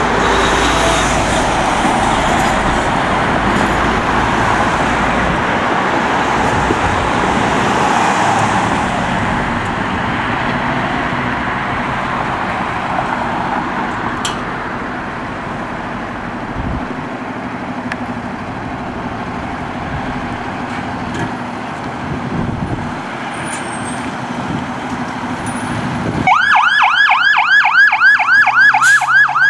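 2020 E-One Typhoon fire engine running steadily in its bay. About 26 seconds in, its electronic siren starts in a fast yelp of about four sweeps a second as the engine pulls out.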